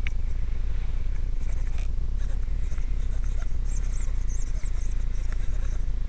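Scratchy rustling and scattered clicks of handling close to a small camera's microphone, loudest about four seconds in, over a steady low rumble.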